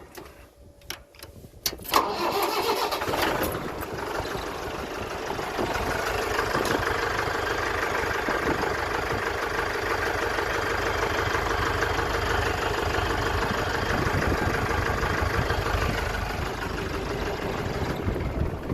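A few clicks, then a Mahindra tractor's diesel engine cranks and catches about two seconds in and settles into a steady idle. It starts with the PTO switched off, showing the newly fitted PTO safety switch is working.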